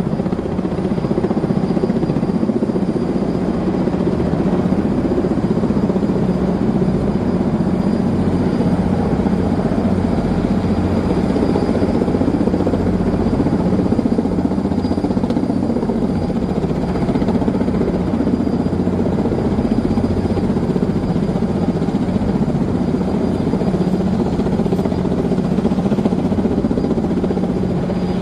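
Heavy-lift helicopter hovering overhead with a load slung on a long line, its rotor and turbine engine running steadily and loudly.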